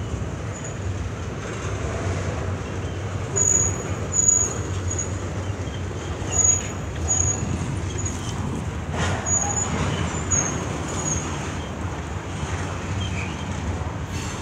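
Double-stack intermodal freight cars rolling past close by: a steady rumble of steel wheels on rail, with short high squeaks here and there and a few louder swells.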